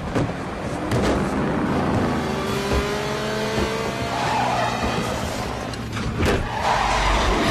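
Action-film soundtrack of a semi truck and cars on the highway: engines running and revving, their pitch rising, with tires squealing. Sharp knocks come about a second in and again near the end.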